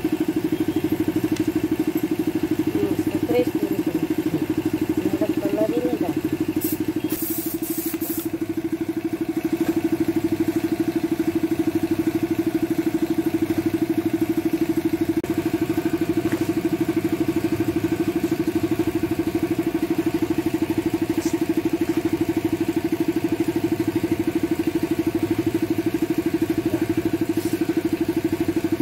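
An engine running steadily at an even pitch, with a fast, even pulse. A short high hiss comes about seven seconds in.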